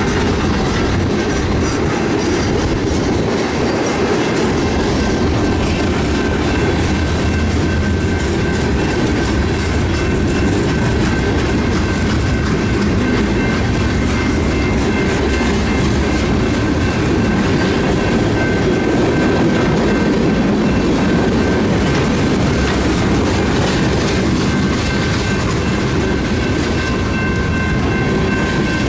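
Freight cars of a BNSF train (covered hoppers and tank cars) rolling steadily past close by, their wheels making a continuous low rumble on the rails. Thin high ringing tones ride over the rumble and grow stronger near the end.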